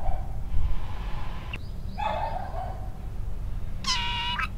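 Neighbour's dog barking: one drawn-out bark about two seconds in and a steadier, higher call near the end, over a constant low outdoor rumble.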